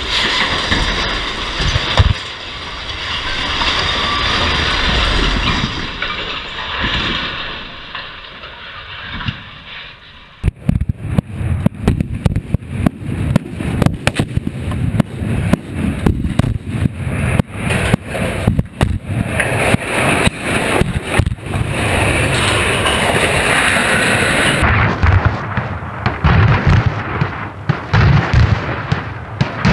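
Explosive charges felling steel guyed radio towers: a rumbling crash with scattered thumps, then, about a third of the way in, a rapid, dense sequence of sharp cracks and booms, charge after charge going off, that runs on to the end.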